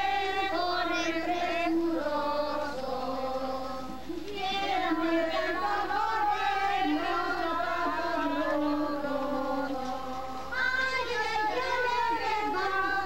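A crowd of people, mostly high voices, singing a Christmas posada song together in long held phrases, with short breaks about four seconds in and again near ten seconds.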